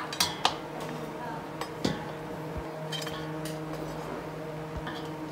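A perforated metal skimmer knocking against a stainless steel basin as stewed bones and meat are scooped out of the pot and dropped in: scattered sharp clinks and knocks, a few at a time, over a steady low hum.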